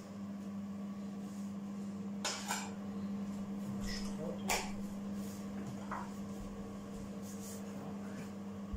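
Light kitchen clicks and knocks: a knife working butter out of a plastic tub and tapping pieces into a metal baking pan, with a sharper knock about halfway through. A steady low hum runs underneath.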